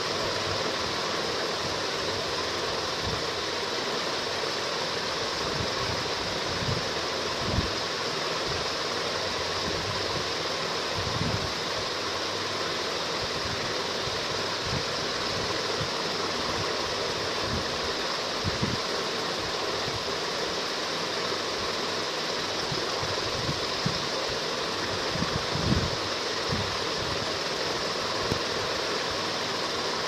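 Steady rushing background noise, like air moving past the microphone, with a few soft low thumps scattered through.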